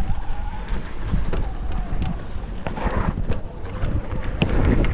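Wind buffeting the microphone over the rumble of a mountain bike's tyres on rough ground, with scattered knocks and rattles from the bike.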